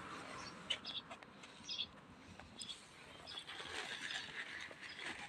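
Small birds chirping faintly, a few short high chirps with a patch of denser chatter later on, and one sharp click just under a second in.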